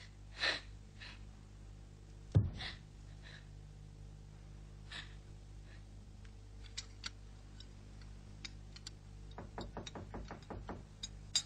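A short breath near the start, one heavy thump a couple of seconds in, then a scatter of light clicks and taps that grows busier towards the end, over a steady low hum.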